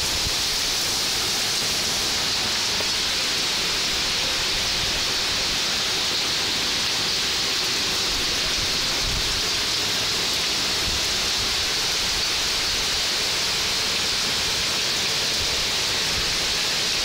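Heavy rain downpour: a steady, even hiss of rain falling on pavement, parked cars and trees.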